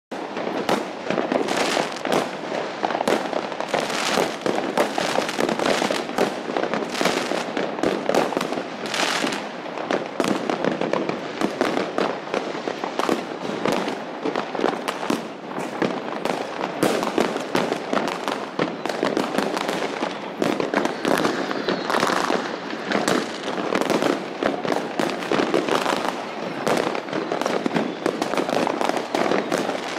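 Many fireworks and firecrackers going off at once in a dense, continuous barrage of overlapping bangs and crackling, with no pause.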